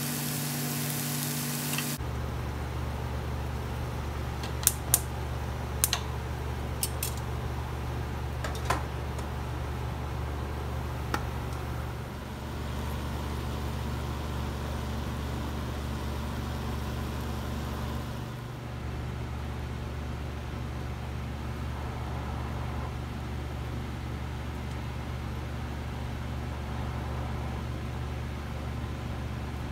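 Meat skewers sizzling in a frying pan, which stops suddenly about two seconds in. A steady low hum follows to the end, with a few sharp clicks between about four and eleven seconds in.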